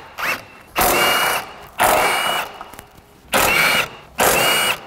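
20-volt cordless impact wrench spinning off the 12 mm nuts that hold the upper strut brace to the strut tower. It runs in about four short bursts roughly a second apart, each with a high whine.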